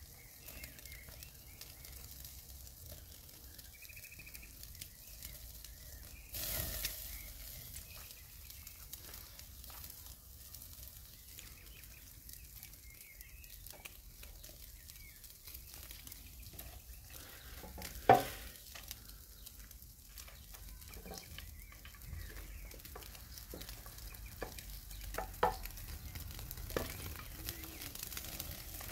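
Steaks sizzling faintly on a charcoal grill, a steady soft crackle, with scattered small clicks. A brief rush of noise comes about six seconds in, and a single sharp knock about two-thirds of the way through is the loudest sound.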